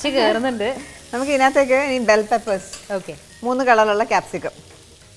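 Vegetables frying and sizzling in a pan on a gas stove, under a woman talking in several stretches.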